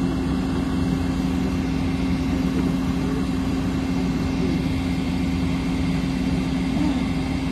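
An engine idling steadily, an even low hum with no change in speed.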